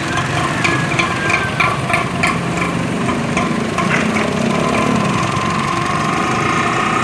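Street traffic of small motorcycle and motor-rickshaw engines running, with a quick run of sharp clicks or knocks, about three a second, through the first three seconds.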